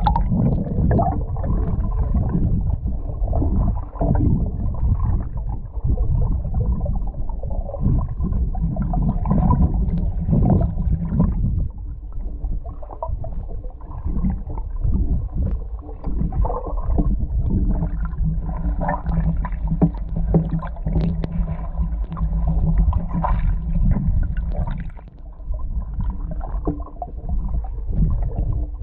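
Muffled underwater sloshing and gurgling of a person wading through deep water while clothed, as picked up by a submerged GoPro camera, with irregular low swells and knocks.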